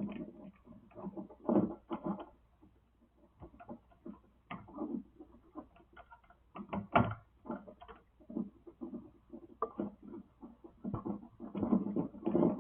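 Irregular small knocks, clicks and rustles of hands handling electrical wires and a wall light switch while a wire is being disconnected from the switch.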